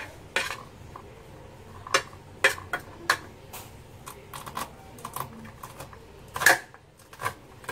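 Knife cutting kernels off a corn cob, an irregular run of short crisp clicks and scrapes as the blade strips down the cob into a plastic bowl. The loudest scrape comes about six and a half seconds in.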